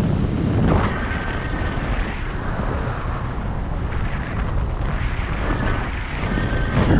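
Airflow rushing over the microphone of a paraglider's harness camera in flight, a steady gusty buffeting that swells about a second in and again at the end.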